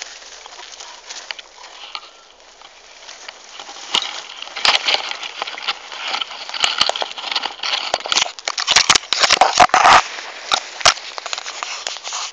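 Dry leaves and twigs crackling and crunching. The sound is light at first, grows louder and denser about four seconds in, and ends in a tight cluster of sharp cracks near the end.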